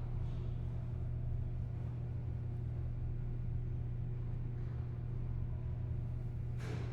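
Stairway ambience: a steady low droning hum. A rushing swell of noise begins just before the end.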